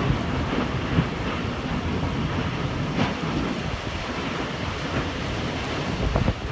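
Tornado wind and rain: a steady, train-like rushing noise, with a few sharp knocks about one and three seconds in and again near the end.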